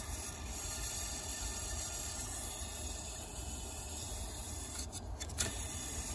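The shaft of an old HC21ZE121A furnace draft inducer motor spinning, its bearings rubbing with a steady, rasping noise, a sign that they are drying out. A couple of light clicks come about five seconds in.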